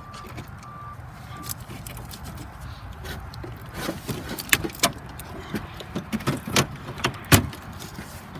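Irregular metal clicks and clinks of a wrench working loose an air-conditioning line fitting nut, over a low steady hum. The clicks begin about three seconds in and the loudest comes near the end.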